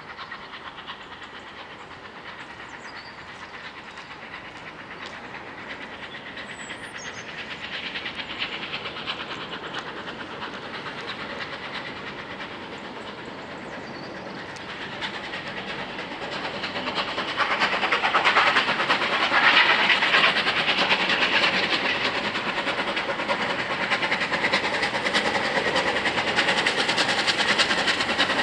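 Bulleid light Pacific steam locomotive 34067 Tangmere working hard towards the listener, its driving wheels slipping repeatedly so the exhaust beats come in a rapid, uneven rush. The sound grows louder from about a third of the way in and loudest over the second half as the engine draws near.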